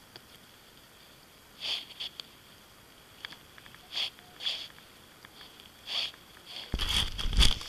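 A person sniffing or breathing in short, soft bursts, about six over several seconds. Near the end the camera itself is handled, with a loud rumbling and scraping.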